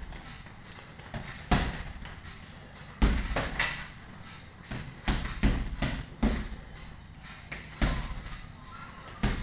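Boxing gloves punching a double-end bag on elastic cords: about a dozen sharp hits, some single and some in quick combinations of two or three, with short pauses between.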